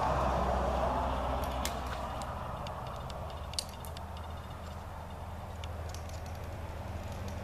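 Scattered light clicks and ticks of needle-nose pliers picking crushed plastic pieces out of a vent tube, the sharpest snap about three and a half seconds in, over a steady low hum.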